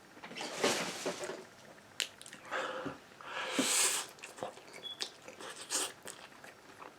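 Close-miked eating: chewing and biting takeout food, with irregular smacks, clicks and a longer rustling scrape about halfway through.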